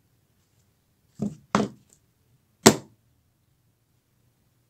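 Three short knocks of phones being handled against a hard table: two close together about a second in, then a sharper, louder one about a second later.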